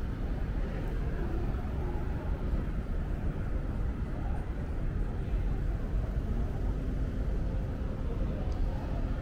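Steady city street ambience, mostly a low rumble of passing traffic.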